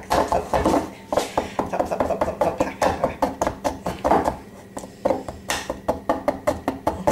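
Spoon beating lemon cream-cheese icing in a glass bowl, clinking against the glass several times a second, with a short lull about four and a half seconds in.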